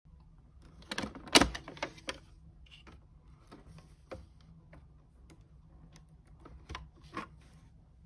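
Small plastic clicks and knocks as a multi-pin jumper-wire connector is handled and pushed onto pins inside a Haslab proton pack's plastic housing. There is a quick cluster of clicks about a second in, the loudest near one and a half seconds, then scattered lighter clicks and two more near the end.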